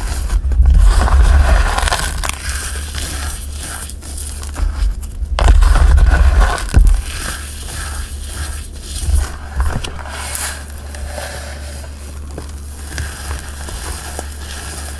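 Hands crushing and crumbling blocks of dyed gym chalk and cornstarch, crunching and crackling. The crushing is loudest about a second in and again around the middle, then goes on lighter toward the end.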